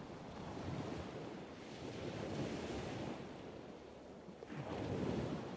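Ocean surf breaking on a beach, a steady wash that swells twice, loudest near the end.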